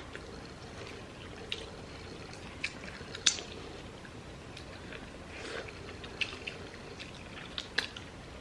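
Wet eating sounds of a sauce-covered seafood boil of Dungeness crab and shrimp being picked apart by hand and eaten, with short sharp clicks and squishes scattered through.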